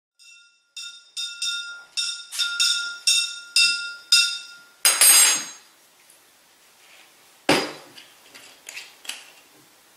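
A small ringing object, metal or glass, struck about ten times in quick succession, each hit ringing at the same clear pitch. This is followed by a short rushing noise and a single dull knock.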